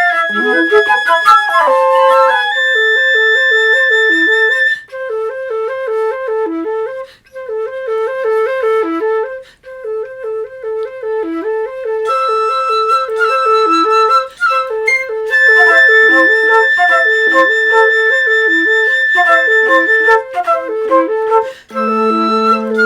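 Layered flutes (piccolo, flute and alto flute) playing a birdsong-like piece. A quick bouncing figure repeats in the middle register while long high notes are held above it, and a low held note joins near the end.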